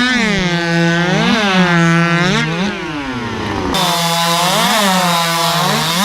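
Racing hot saw (modified chainsaw) running flat out through a log: a steady high-pitched engine scream while the chain is loaded in the wood. The pitch jumps up briefly three times, about a second in, around two and a half seconds in and near five seconds in, as the saw comes free between cuts.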